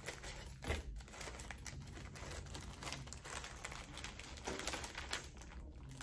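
Small clear plastic bag crinkling as it is handled, in a run of short, irregular rustles and crackles.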